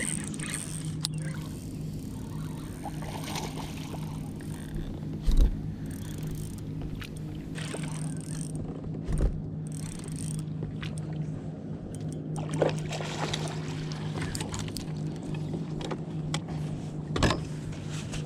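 A boat's motor humming steadily, with a few dull thumps and sharp knocks on the boat.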